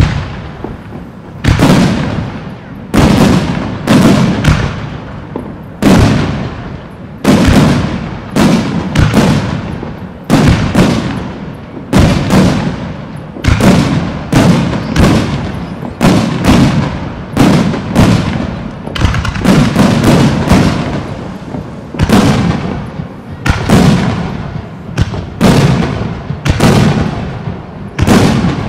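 Fireworks display: aerial shells booming in a steady barrage, about one or two sharp bangs a second, each trailing off in a rolling echo.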